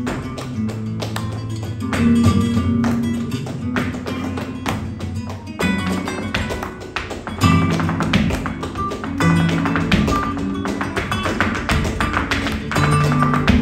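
Flamenco guitar playing with a dancer's rapid zapateado footwork striking the stage, and hand clapping (palmas) keeping time.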